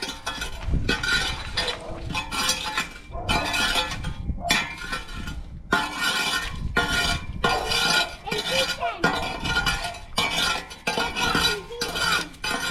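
Backyard rubbish being handled and gathered: repeated rustling, clattering and clinking bursts of loose debris, with wind rumbling on the microphone.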